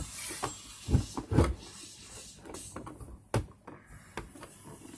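Knocks and light clicks of something being handled. Two heavy thumps come about a second in, and a sharp knock comes near three and a half seconds.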